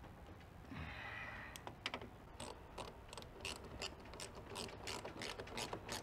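Ratcheting driver clicking in short, uneven runs, about two to three clicks a second, as the 8 mm bolt holding a car's exterior door handle is run in and snugged. There is a brief scraping rustle about a second in, before the clicking starts.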